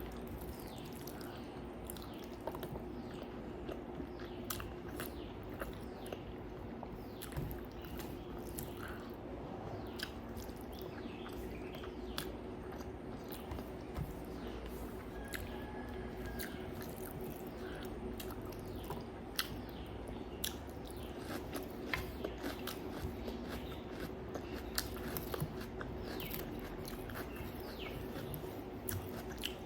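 A person eating close to the microphone: chewing with frequent small wet clicks and crunches, over a steady low hum.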